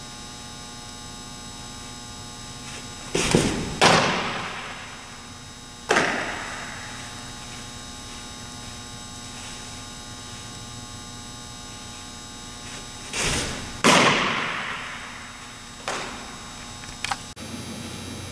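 Two fastpitch softball pitches, each a brief scuffle of the windup and stride, then a loud, sharp smack of the ball landing that echoes through the large indoor hall. About two seconds after each, a softer smack follows. A steady electrical hum runs underneath.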